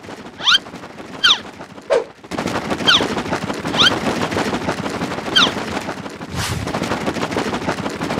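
Cartoon sound effect of rapid gunfire: a dense crackle of shots with a short falling zip, like a ricochet or bullet whine, every second or so. It cuts off suddenly at the end.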